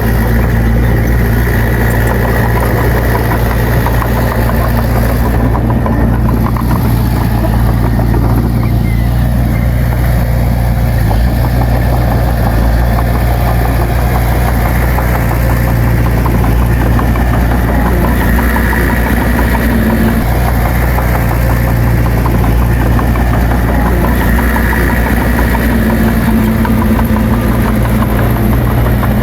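Heavy diesel engine of earthmoving machinery running steadily at a constant speed, with a low, even drone and no breaks.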